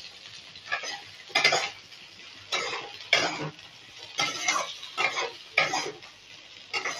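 A metal spatula stirs and scrapes potato and cauliflower pieces around a non-stick wok, in about ten separate strokes, over the light sizzle of the vegetables frying.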